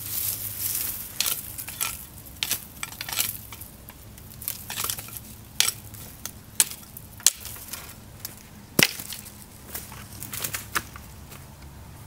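Machete chopping at branches and twigs: about ten sharp cracks at irregular intervals, the loudest about nine seconds in, with dry leaves and twigs crunching and rustling between the strokes.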